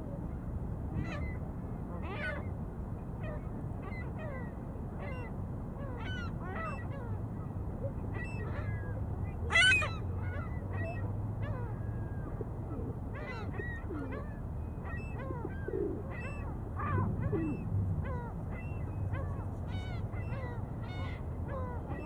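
Geese honking, many short calls one after another all through, with one louder call about ten seconds in, over a steady low rumble.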